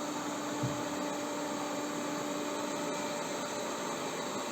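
Xiaomi Mi Robot Vacuum-Mop Essential robot vacuum running on a laminate floor: a steady whirr of its suction fan and brushes with a steady hum. One brief low knock comes a little over half a second in.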